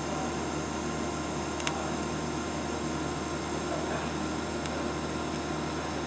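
TIG welding arc running steadily as a bead is laid to join a steel bracket to a throttle pedal: an even hiss over a low hum. Two brief ticks come through, one a little under two seconds in and one near the end.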